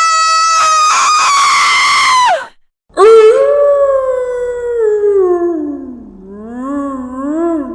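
A high, sustained scream that drops sharply in pitch and cuts off, then after a brief silence a long howl that starts high, slides down and wavers up and down before fading out.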